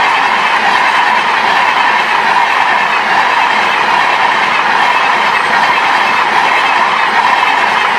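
Double-decker express train coaches passing on the near track: a loud, steady rush of wheels on the rails.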